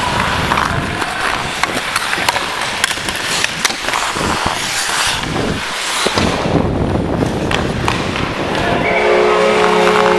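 Ice-hockey skate blades carving and scraping on the ice, with sharp clicks of sticks and puck, heard close up from a helmet-mounted camera on a skating player. About nine seconds in, a goal horn starts sounding a steady chord: the Minnesota Wild goal horn, marking a goal.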